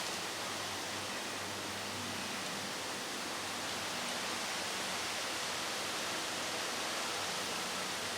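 Steady, even hiss of outdoor background noise with no distinct events, and a faint low hum under it.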